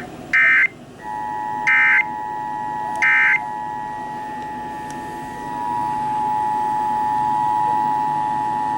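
Emergency Alert System broadcast tones: three short screeching data bursts of the SAME header about a second apart, with the steady two-tone EAS attention signal starting about a second in and holding to the end.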